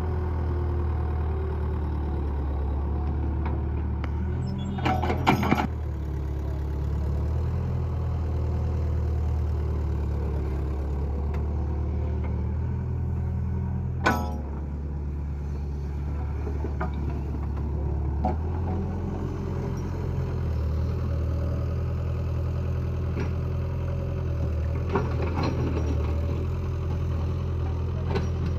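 Tractor or backhoe diesel engine running steadily at a low, even speed, with a few sharp metallic knocks: a cluster about five seconds in and a single louder one about halfway through.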